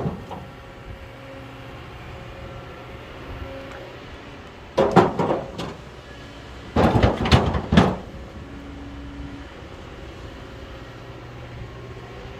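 Kobelco hydraulic excavator's diesel engine running steadily at a distance, with a faint intermittent hydraulic whine. Two loud bursts of clattering rock impacts come about five and seven seconds in.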